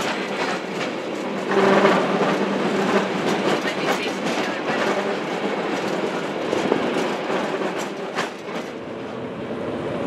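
San Francisco cable car rolling along its track: a steady rattling and clattering of the car on the rails, broken by many sharp clicks and clanks, one of the loudest a little past eight seconds in.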